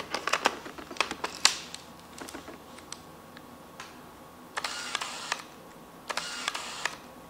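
Clicks of the screw-drive Nikon 85mm f/1.4D lens being mounted and locked on a Nikon D4S body, then two short whirring runs about a second apart of the body's autofocus motor. The motor turns the lens's focus screw through its whole range and back, hunting because the lens cap is on and it can find no focus.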